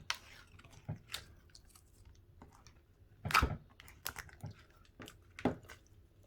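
Slime being squeezed and pulled by hand, giving scattered sticky clicks and squishes, the loudest about three and a half seconds in and again about five and a half seconds in.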